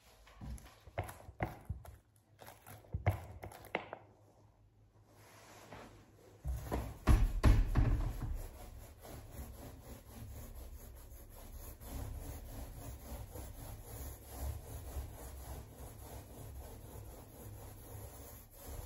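Paint being worked onto a wooden door panel with a small roller and brush: quick back-and-forth strokes making a steady, rhythmic rubbing. A few sharp knocks come in the first four seconds, and heavy thumps about seven seconds in.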